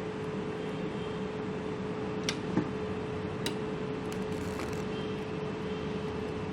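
Steady mechanical room hum with one constant tone, like a fan or air conditioner, with three or four small clicks between about two and four seconds in.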